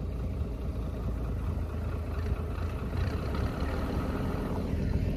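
Tractor engine running steadily as it moves slowly along the paddock.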